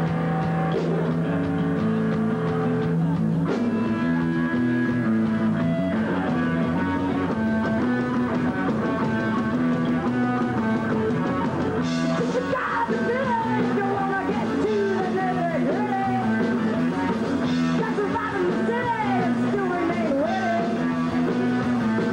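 Punk rock band playing live: electric guitar, bass and drum kit, with a woman's voice singing from about halfway through.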